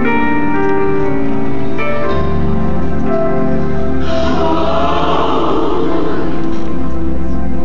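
Gospel song with a choir singing long held notes, played loud through the hall's speakers. About four seconds in, a rush of noise swells over the music for roughly three seconds.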